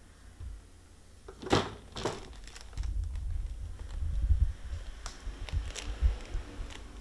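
Maine Coon kitten scrambling about in a plastic laundry basket: two sharp knocks about a second and a half in, then scattered clicks, scratching and crinkling over a low rumble of handling noise.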